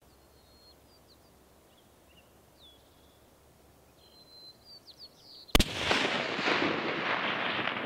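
Small birds chirping faintly, then a single loud rifle shot about five and a half seconds in, followed by a couple of seconds of echo that slowly dies away.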